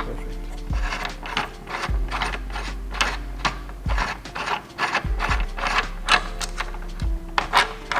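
Ratchet mechanism clicking in a run of sharp, separate clicks, a few a second and unevenly spaced.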